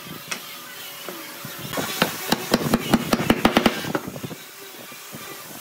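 Hammer knocking wooden table-base parts together at a joint: a single knock near the start, then a quick run of about ten knocks between two and four seconds in.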